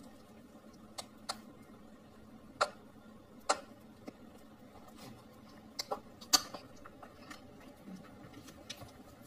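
Faint eating sounds of a toddler biting into corn on the cob: short sharp clicks and smacks of mouth and teeth on the kernels. They come irregularly, about eight in all, the loudest a little past two and a half and six seconds in.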